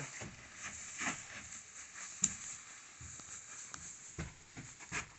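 A cut wooden board being handled and fitted into a slot: scattered faint knocks and light scrapes, with one sharp click about two seconds in and a couple of firmer knocks near the end.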